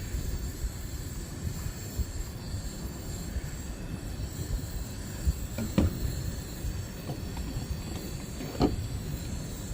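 Wind buffeting the microphone as a low, uneven rumble, with two short knocks, one about six seconds in and one near the end.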